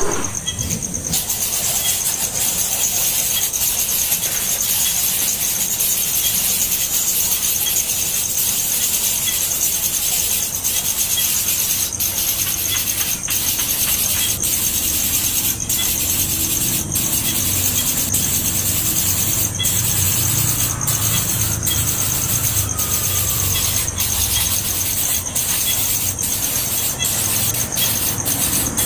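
Baby birds begging for food: a continuous, shrill, high-pitched chorus of cheeping.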